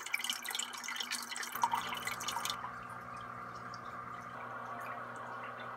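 Home aquarium's filter and air stone running: water trickling and bubbling with dense crackling, joined about a second and a half in by a steady low hum under the bubbling.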